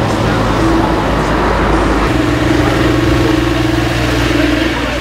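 A motor vehicle's engine running close by, a steady hum whose note shifts and grows stronger about two seconds in.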